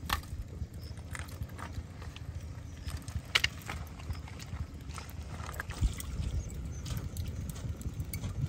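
Scattered sharp clacks of pebbles and charcoal pieces on a stony riverbank, as charcoal is dropped into a small handmade stove and feet shift on the stones, at irregular intervals with the sharpest about three and a half seconds in. A low steady rumble lies under the clacks.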